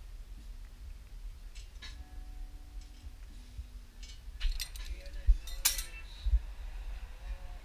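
Metal exhaust tubing being handled under a car, giving light clinks and knocks, with a few sharp clanks between about four and a half and six seconds in.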